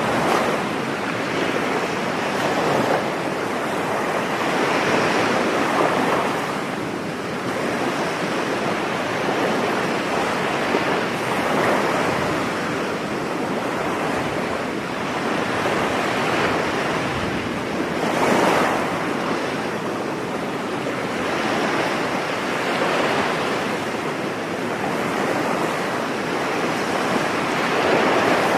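Ocean waves breaking and washing on a beach, a continuous rush of surf that swells and eases every few seconds, with one stronger wave about eighteen seconds in.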